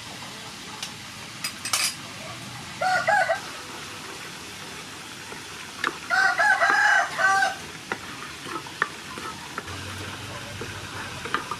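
A rooster crows twice: a short call about three seconds in, then a full multi-part crow from about six to seven and a half seconds in. Underneath, sugar and oil sizzle softly in a frying pan while a wooden spatula stirs and taps against the pan.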